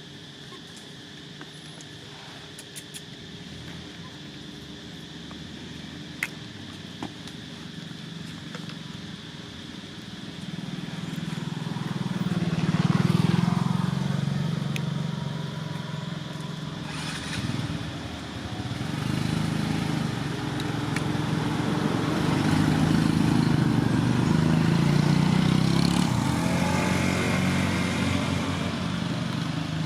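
A motor vehicle's engine running close by, getting louder about twelve seconds in, easing, then swelling again for most of the second half.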